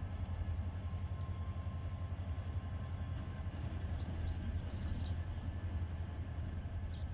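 Diesel engine of a Class 35 GM-EMD shunting locomotive running with a steady low rumble as it moves slowly away. A bird chirps briefly about four seconds in.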